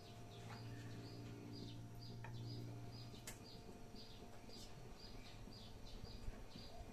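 Faint, high chirping calls repeating evenly about twice a second, over a low steady hum that fades after about three seconds.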